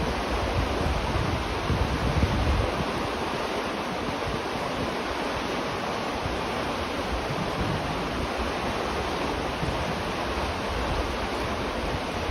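River water flowing, a steady rushing with no break. A low rumble under it fades out about two and a half seconds in.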